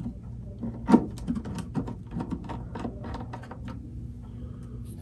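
Small irregular clicks and taps of a screwdriver and metal hardware being handled on a hollow-body archtop guitar, with a louder knock about a second in. The clicks stop a little before the end. A steady low hum runs underneath.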